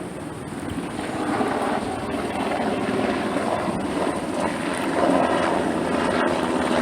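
Helicopter flying over, its rotor and engine noise growing steadily louder as it approaches.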